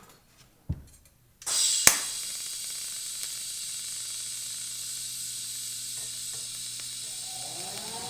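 Miller TIG welder arc running, a steady hiss with a low hum under it, starting about a second and a half in with a sharp click just after it strikes. Music comes in near the end.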